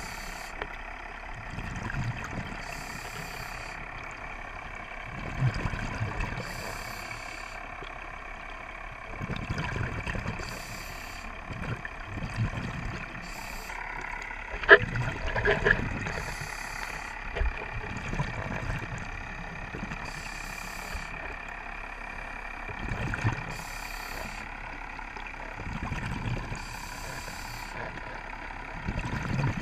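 Scuba diver breathing underwater: a hiss every few seconds as each breath is drawn through the regulator, alternating with low bubbling as it is breathed out. A sharp click comes about halfway through.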